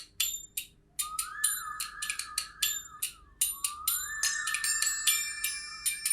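Instrumental music played through the Sound King SK25000 2.1 amplifier and its speakers: sharp percussive hits with bell-like chimes, and from about a second in a high melody that slides up and down.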